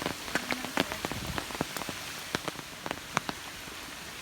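Steady rain falling, with many separate drops tapping sharply and irregularly close by, more of them in the first half.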